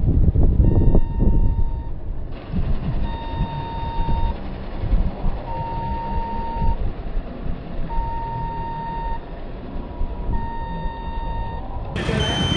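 Road traffic rumble with a repeating electronic beep, each beep about a second long and coming every two to three seconds. Near the end a higher, quicker beeping takes over.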